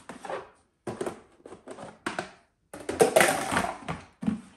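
Hard plastic parts of a portable bucket toilet knocking and scraping together as the white inner bucket is worked into the gray base: a string of short clacks, with a louder, longer scraping rattle about three seconds in.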